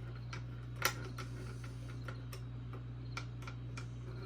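Small screwdriver turning screws into a robot kit, making light, irregular clicks, with one sharper click about a second in, over a steady low hum.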